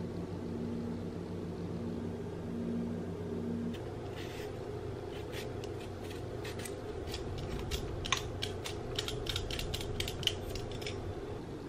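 Hand vegetable peeler scraping the skin off a raw red potato in a quick run of short strokes, over a steady low hum. For the first few seconds a low humming tone pulses on and off.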